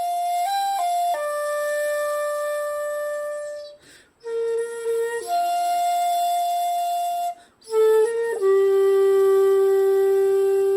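Shakuhachi playing a slow melody in long, steady notes without vibrato (no yuri). It breaks briefly for breath twice, about four and seven and a half seconds in, and ends on a long held low note.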